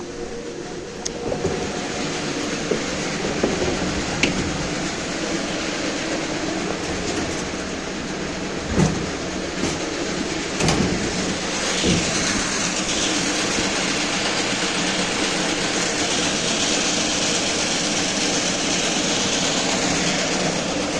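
Poultry house automatic feeding machine running steadily, a continuous mechanical rumble and rattle, with a few sharp clanks partway through.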